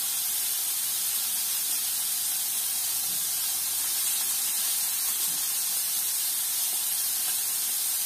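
Small pieces of marinated meat sizzling in a hot frying pan, a steady hiss.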